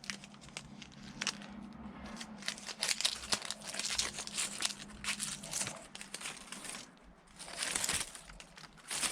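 Self-amalgamating rubber tape being stretched and wrapped by hand around a rope, giving irregular bursts of crackly rustling.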